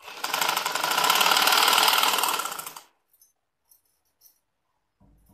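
Black domestic sewing machine stitching at speed, a rapid needle-and-feed clatter for about three seconds that then stops, followed by a few faint clicks. It is sewing a fabric casing over elastic in a trouser waistband.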